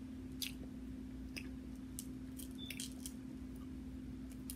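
Small scattered crackles and clicks of a boiled shrimp's shell being peeled by hand, over a steady low hum.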